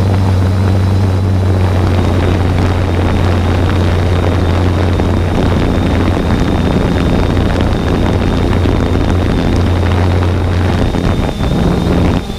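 Multirotor drone's motors and propellers running with a steady loud hum and a thin high whine, over a rush of air noise. The low hum drops away near the end.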